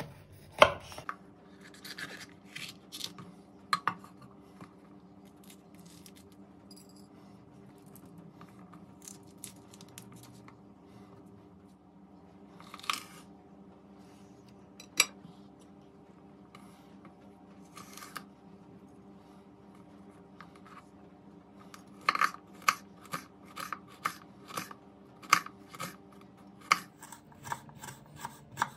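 Kitchen knife cutting a green bell pepper on a bamboo cutting board: scattered taps and crunches of the blade going through the pepper, then a quick, even run of slicing strokes knocking on the board near the end.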